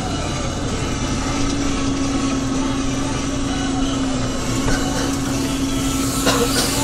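Deutz-Fahr Agrotron M420 tractor engine running steadily under load as it pulls a McHale 991BE bale wrapper, heard from the driver's seat, with a steady whine that sets in about a second in and a short squeak near the end.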